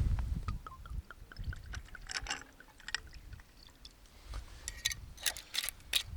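Liquid being poured into a glass while mixing a whisky highball, with scattered small clicks and knocks of glass and ice.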